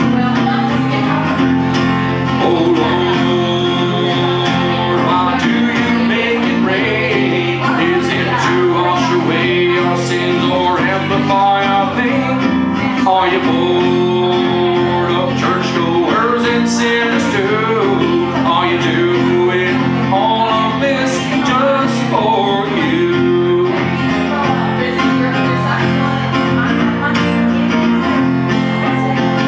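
A man singing live while accompanying himself on acoustic guitar, a slow song played without pause.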